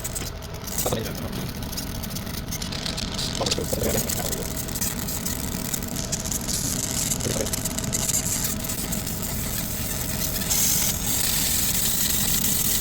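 Laser engraving machine running with a steady low hum and a rush of air, likely its fans and air assist. The hiss grows louder about ten seconds in.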